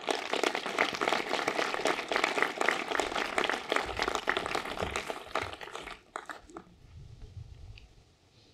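Audience applauding: dense clapping for about six seconds, then thinning to a few last claps and stopping.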